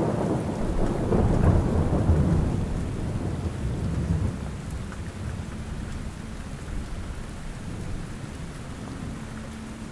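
A roll of thunder starts suddenly, is loudest for the first two seconds or so, then rumbles away over several seconds, over steady rain.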